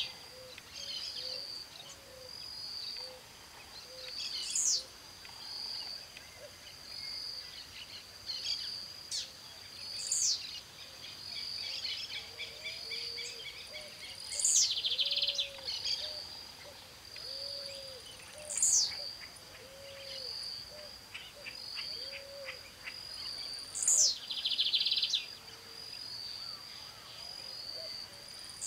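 Songbirds singing: a sharp, high whistled note dropping steeply in pitch comes about every four to five seconds, over a steady run of short high chirps. Twice a dense buzzy trill comes with the high note, and soft, lower, rounded notes sound in the background.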